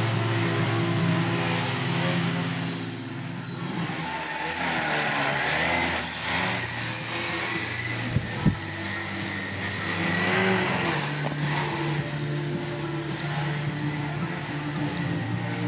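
Small electric motor and propeller of an indoor 3D aerobatic RC foam plane whining, its pitch rising and falling with the throttle as it hovers and tumbles. Faint background music plays underneath.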